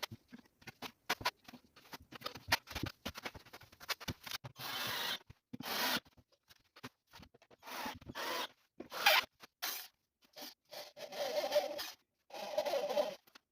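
Irregular clicks and short rasping, scraping sounds of objects being handled, with longer rasps about a second long in the second half.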